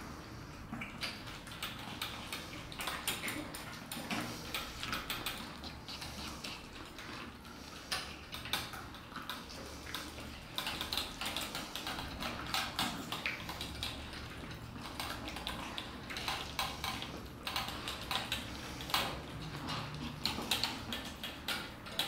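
Several cats eating wet food from stainless steel bowls: a continuous, irregular run of small wet chewing and lapping clicks, with light clinks of the metal bowls against their wire stands.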